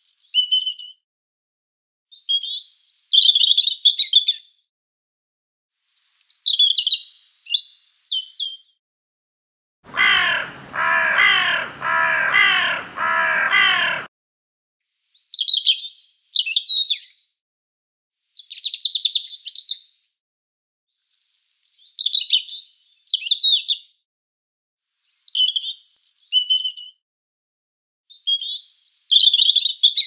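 European robin song: high, quickly varying phrases of about two seconds each, separated by short pauses. About ten seconds in, a lower, harsher run of repeated calls from another bird lasts about four seconds.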